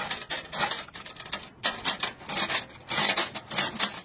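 Rhythmic rasping strokes, about three a second with brief pauses, of metal engine parts being scraped by hand.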